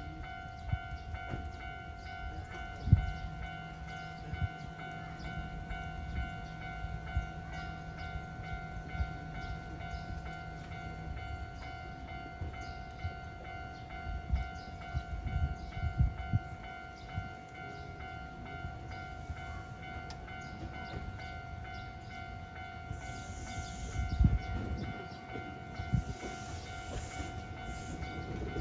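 Railway level-crossing alarm sounding steadily as one pitched tone with its overtones, over low irregular rumbles and knocks. Near the end a Nankai train comes closer, with louder rail noise and a high hiss.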